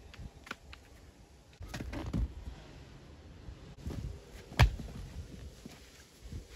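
Stonework knocks: stones being handled and set, with a few dull knocks and one sharp, loud crack of stone on stone about four and a half seconds in.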